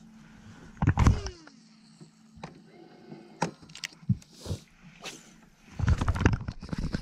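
Handling noise from a baitcasting rod and reel as a line is worked for bass: scattered clicks and knocks, a loud burst about a second in, and a louder, busier stretch in the last second as the fish takes the bait.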